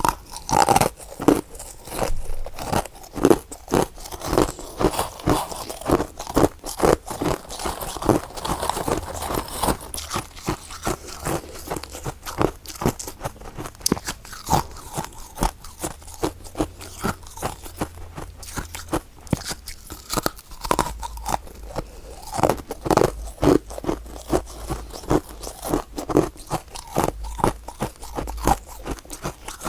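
Close-up crunching and chewing of soft, powdery freezer frost ice, a steady run of sharp irregular crunches several times a second.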